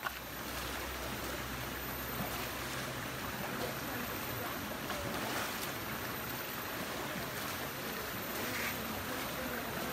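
Steady splashing and rushing of river water as people wade around an elephant and throw bucketfuls of water over its back.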